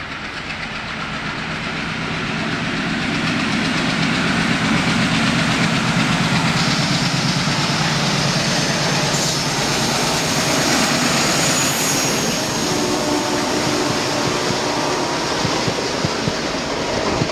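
Indian Railways diesel locomotive hauling a passenger train at speed: its engine drone grows louder as it approaches, then the coaches rush past with wheel clatter.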